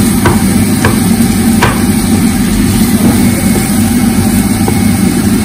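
A steady low hum, with three or four sharp knocks of a wooden spatula against a nonstick frying pan as pork, onion and peppers are stirred.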